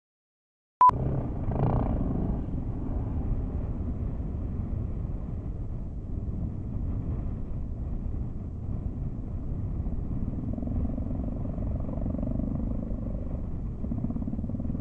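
A short, sharp beep about a second in, then a steady low rumble of a dirt bike engine running, mixed with wind on the microphone.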